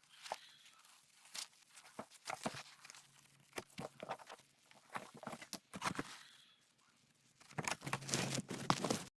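Hands handling a book and its packaging: irregular rustling, crinkling and light taps, with a denser burst of rustling near the end.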